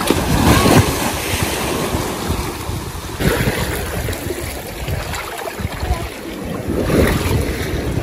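Sea waves washing and swirling against a stone seawall and its steps, surging in three times, with wind buffeting the microphone.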